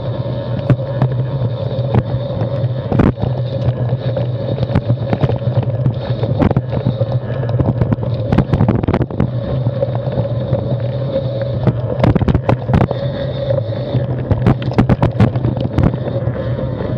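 Plus-tyre mountain bike (Carbon 6Fattie) rolling down rocky dirt singletrack: a steady tyre rumble with frequent clatters and knocks as the bike rattles over rocks, thickest about halfway through and again near the end.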